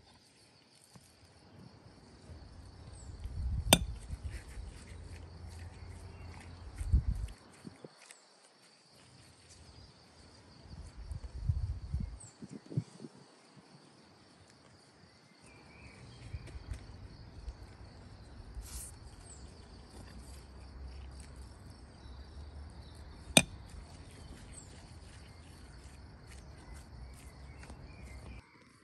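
Insects chirping steadily in a high, even band, with stretches of low rumble underneath. There is a sharp click about four seconds in and another near the end.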